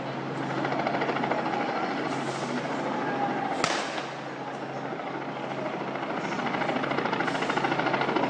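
Street protest noise: crowd sound under a steady, rapidly pulsing hum, with one sharp bang about three and a half seconds in, as a flash goes off by the riot-police line.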